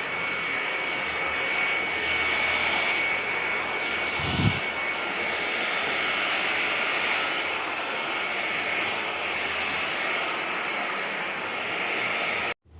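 Oraimo S3 cordless stick vacuum cleaner running: a steady rush of air with a thin high motor whine. There is a brief low thump about four seconds in, and the sound cuts off suddenly near the end.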